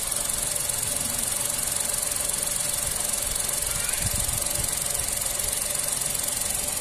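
Tata Altroz 1.2-litre naturally aspirated three-cylinder petrol engine idling steadily when warm, below 1000 rpm, heard with the bonnet open.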